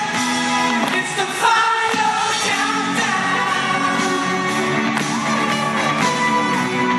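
Pop music with a singer, playing continuously.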